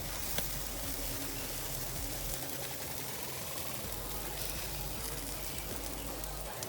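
Chicken basted with barbecue sauce sizzling steadily on a barbecue grill.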